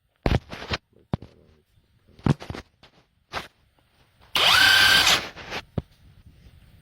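Seesii cordless brushless 1/2" impact wrench: a few sharp clicks, then about four seconds in the motor spins up with a rising whine and runs free for under a second before stopping.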